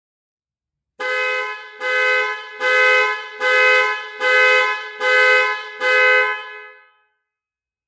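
Car panic alarm pulsing a two-tone car horn in seven short, evenly spaced blasts, a little more than one per second, then stopping.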